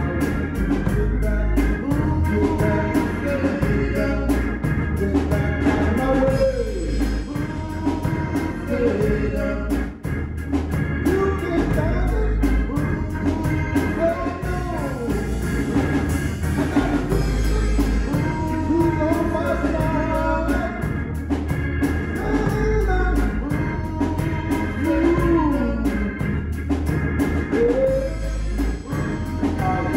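Men singing a church song into handheld microphones over organ accompaniment with a steady beat.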